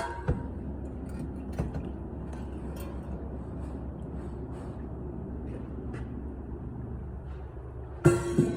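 Steady low rumble of workshop machinery, with a few faint knocks and clanks. Near the end a plucked-string music cue comes in.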